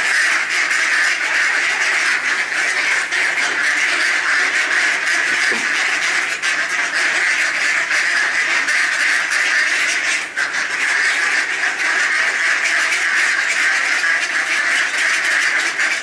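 A large flock of mallards quacking and calling over one another, a dense, unbroken chatter.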